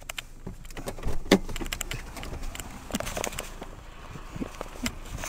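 Clicks, knocks and rustling of a handheld camera being handled while someone gets out of a car, with one loud thump about a second in.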